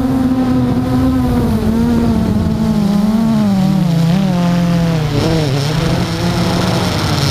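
Quadcopter drone's motors and propellers humming, the pitch wavering up and down as it manoeuvres and settling lower after about four seconds. A thin high whine joins about five seconds in.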